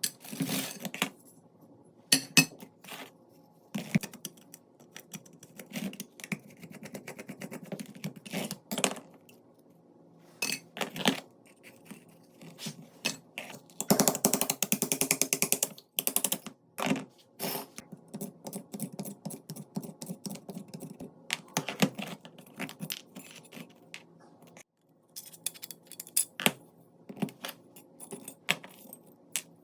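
Small metal pistol parts clinking and clicking as they are handled. About halfway through comes a burst of rapid rattling clicks.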